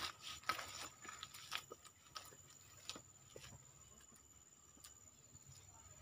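Faint, irregular footsteps and scuffs on forest stair steps, most of them in the first three seconds, over a steady high-pitched insect whine.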